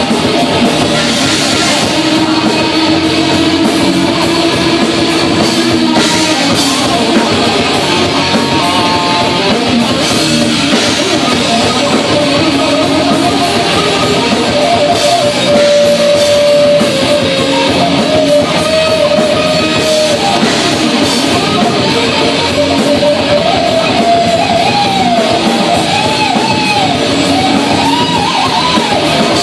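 Live heavy rock band playing loud: distorted electric guitars and a drum kit with cymbals, with a voice singing over them.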